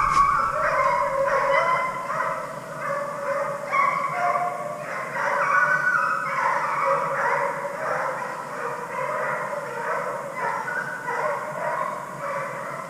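A pack of deer-driving hounds baying and barking on a chase, many voices overlapping in a continuous, uneven chorus.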